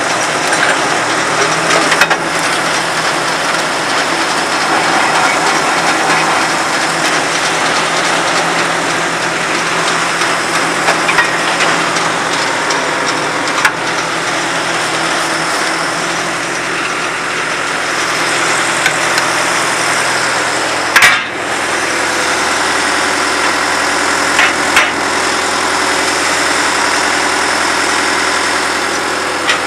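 22W cable tool drill rig's engine running steadily, with the rig's machinery clattering and a few sharp metal knocks.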